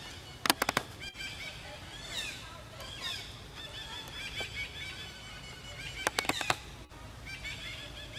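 Long-tailed macaques giving short, high calls that fall in pitch, some in quick series. A quick run of four or five sharp clicks comes about half a second in and again about six seconds in.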